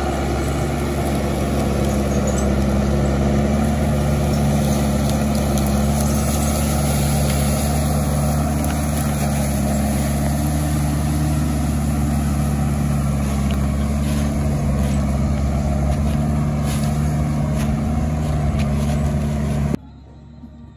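1994 Timberjack 240A cable skidder's diesel engine running steadily under load as the machine drags a hitch of logs. The sound cuts off suddenly near the end.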